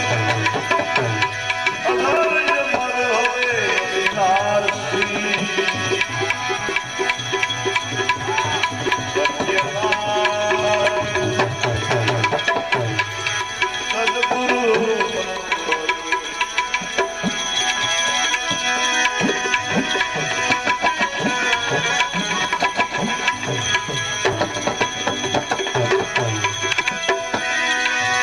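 Bhajan accompaniment: tabla playing a rhythm under steady, sustained melodic tones.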